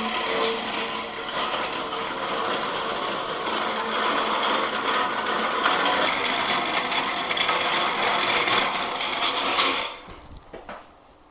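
A machine running with a steady whirring noise, which cuts off suddenly about ten seconds in.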